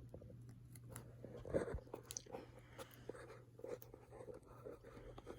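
Cockatiel's beak biting and tearing chunks off a banana peel: faint, irregular little crunches and clicks.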